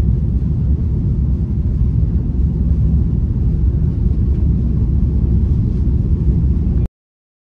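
Steady low rumble of a moving vehicle, cutting off abruptly near the end.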